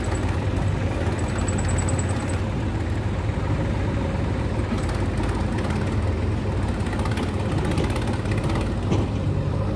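Sonalika Sikandar DI 50 RX 52 hp tractor engine running steadily, a deep even hum, as it pulls a trailer heavily loaded with soil forward over soft muddy ground.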